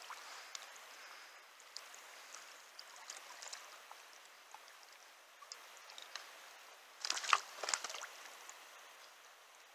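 Steady rush of flowing river water with scattered small clicks and taps. A brief, louder burst of scuffling noise comes about seven seconds in.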